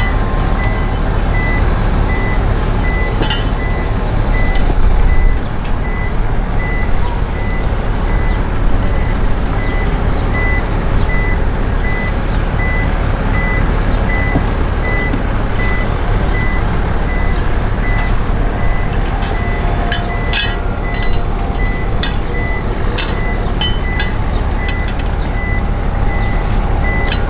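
A motor runs with a steady low rumble under a high electronic warning beep that repeats at a regular pace, the sound of the boat's deck crane being worked. Sharp metallic clicks and clanks come in the last several seconds as the crane hoists a large fish.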